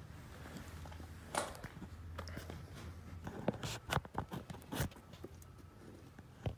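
An irregular string of clicks and knocks from the phone being handled and set down and the engine block being turned over on its engine stand, over a steady low hum.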